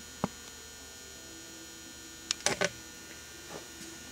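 Quiet steady electrical hum, with a light click near the start and a short run of clicks and knocks about two and a half seconds in.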